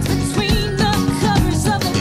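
Upbeat children's TV theme song: sung vocals over guitar and a steady drum beat.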